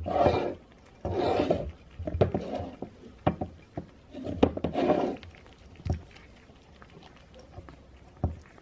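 Cat growling in about four short, harsh bursts over the first five seconds while eating from a bowl shared with another cat, with small clicks and knocks in between.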